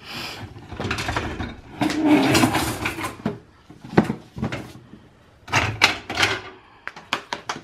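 Cookware being handled and moved around in a kitchen cabinet: a run of knocks, clatters and scrapes, busiest about two to three seconds in, then scattered sharp clicks and knocks.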